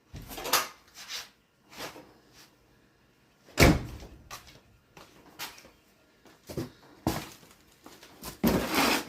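Handling of a car's rear interior trim panel and its packaging: a string of knocks and rustles with quiet gaps, the loudest knock about three and a half seconds in and a longer rustle near the end.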